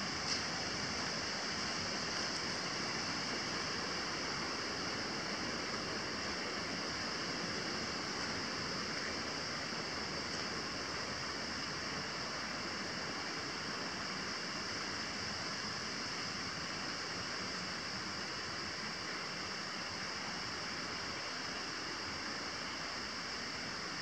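Steady rush of a mountain stream, with a constant high hiss over it and one soft knock just after the start.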